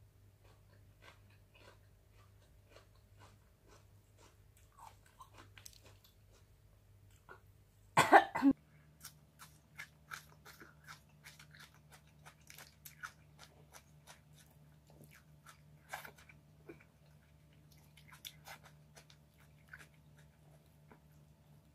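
Close mouth sounds of a person eating catfish adobo by hand: chewing with many small clicks and crunches. One short, loud burst of noise comes about eight seconds in.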